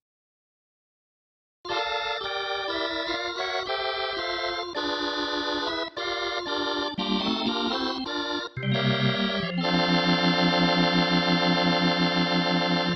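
Organ voice of a Yamaha PSR-SX900 arranger keyboard playing a run of chords, starting after a second and a half of silence and ending on a long held chord with a quick pulsing wobble that cuts off at the end.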